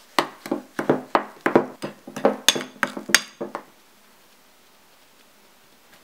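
Metal spoon stirring thick red-pepper-paste sauce in a ceramic bowl, knocking and scraping against the bowl about three times a second, with a few sharper ringing clinks near the end. The stirring stops after about three and a half seconds.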